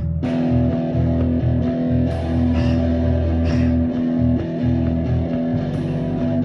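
Rock music led by guitar over a steady bass line, played without vocals, after a brief dropout right at the start.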